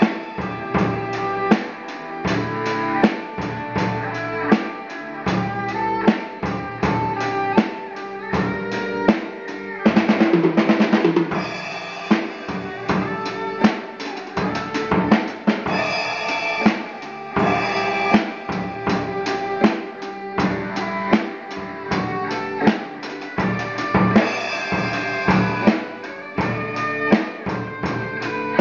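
Electric guitar and drum kit playing together in a band rehearsal: steady kick and snare hits under the guitar's sustained notes and chords, with a dense, louder run of hits about ten seconds in.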